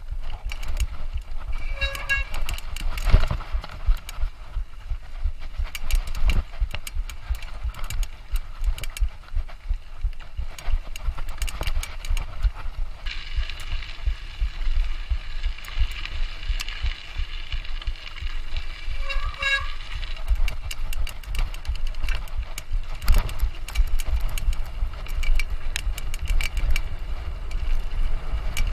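A mountain bike ridden fast over rough trail: a steady low rumble of wind and tyres, with constant irregular rattling clicks from the bike. High tonal squeals or toots come briefly at about two seconds and again just before twenty seconds, and a longer high whine runs from about thirteen to twenty seconds.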